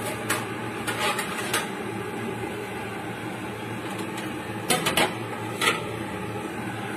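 A spatula clicking and scraping against a flat dosa pan while a dosa is folded over its filling: a few short knocks in the first second and a half, then a quick cluster of three a little before five seconds and one more just after, over a steady background noise.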